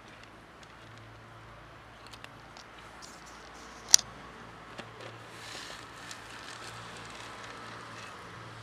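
Cat crunching dry kibble from a plastic tub, small irregular clicks with one sharp click about four seconds in. Over the last few seconds a soft rustling hiss as the tub is tipped and the kibble spills onto the concrete.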